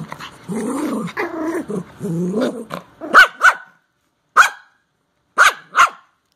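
Small dogs, a Yorkshire terrier puppy and an older dog, growling in play for about three seconds, then five short, sharp barks in quick pairs.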